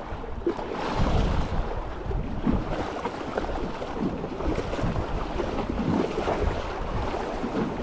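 Wind buffeting the microphone in gusts, over the wash of sea water at the shore.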